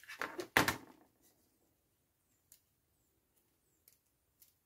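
Handling noise on a wooden desk: a few clicks and a knock about half a second in, as a plastic TV remote is set down and the power adapter picked up. After that it is nearly quiet, with a few faint ticks from the cable being handled.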